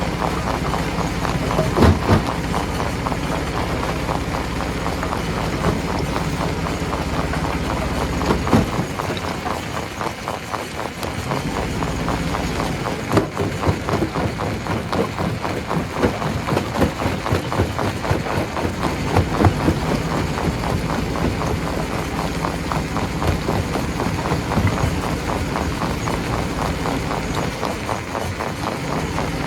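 Stone crusher running: a dense, irregular clatter of rocks knocking against each other and the machine over a low mechanical hum, with a few louder impacts. The hum eases off about nine seconds in while the clatter goes on.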